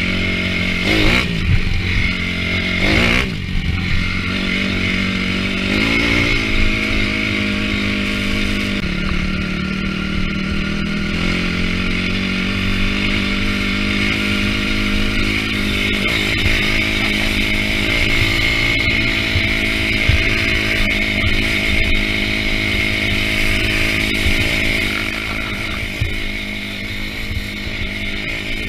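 Honda CRF250R dirt bike's single-cylinder four-stroke engine under way. It revs up and down through gear changes in the first few seconds, then runs at a steady cruising pitch.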